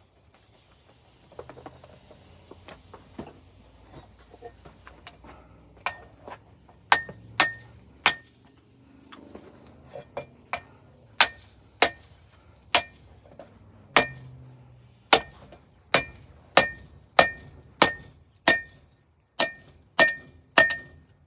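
Hand hammer striking a red-hot, borax-fluxed billet of 1084 and 15N20 layered steel on an anvil, forge-welding the layers. Each blow rings sharply. The blows start about six seconds in and come one to two a second.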